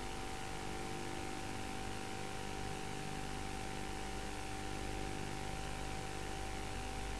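Steady hiss with a low electrical hum and a faint steady whine, unchanging throughout: the background noise of a VHS cassette soundtrack, with no other sound.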